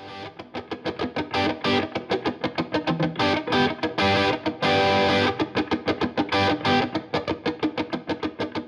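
Guitar music with a fast, steady picked rhythm, the guitar sounding electric and distorted.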